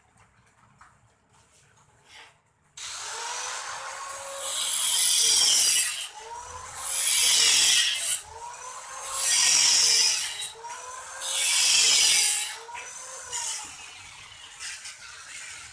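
Handheld electric power tool switched on about three seconds in, then worked four times against hollow steel tube. Each pass is a loud, harsh grind of about a second and a half, with the motor's pitch dropping under load and coming back up between passes.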